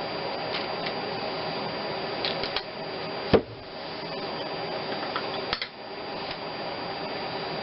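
A steady background hum with light clicks of parts being handled on the engine, a sharp knock a little over three seconds in, and another click about two seconds later.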